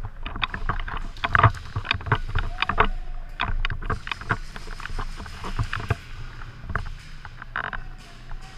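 Irregular crunching, rustling and clicking from a player moving and handling gear, with a steady low rumble underneath; the clicks thin out after about six seconds.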